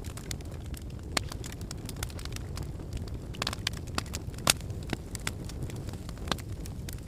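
Wood fire burning in a fireplace: a steady low rumble of the flames with irregular sharp crackles and pops from the burning logs, the loudest pop about four and a half seconds in.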